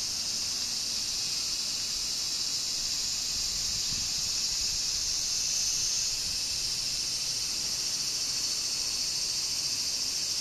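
Steady, high-pitched chorus of insects such as crickets, trilling without a break.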